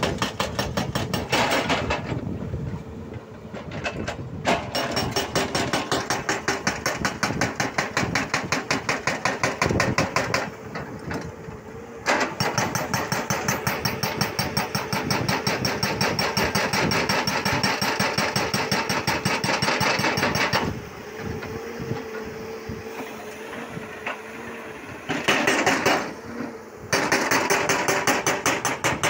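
Hydraulic rock breaker on a Volvo excavator hammering on rock in long runs of rapid, evenly spaced blows. It stops several times, and in the pauses the excavator's diesel engine can be heard running steadily.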